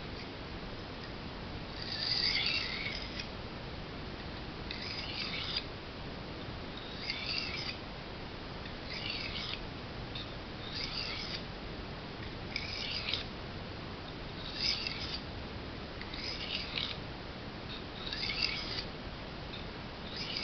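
Knife blade drawn across a whetstone in slow, even strokes: about ten short, gritty scrapes, one every two seconds.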